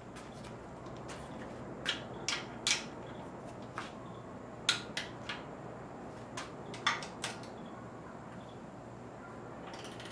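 Scattered sharp metal clicks from a socket ratchet and hand tools while oil pan bolts are being tightened, about ten in all, irregularly spaced, over a steady low background hum.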